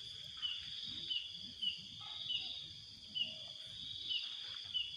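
Night insect chorus, crickets: a steady high-pitched buzzing drone with a short chirp repeating about twice a second.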